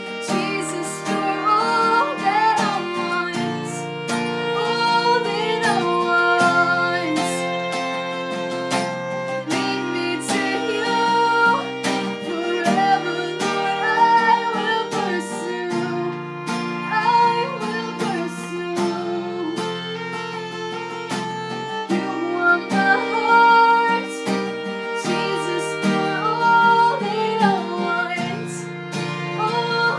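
Acoustic guitar strumming chords with a violin playing a wavering, sustained melody line over it.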